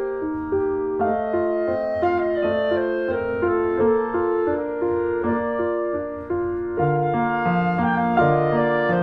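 Instrumental background music: a melody of evenly paced notes over chords, with a lower bass line coming in near the end.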